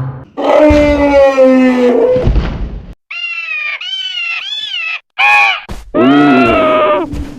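Creature sound effects. A drawn-out pitched call for a Columbian mammoth falls slowly and ends about two seconds in. Then comes a string of high, wavering screeching calls for the terror bird Phorusrhacos.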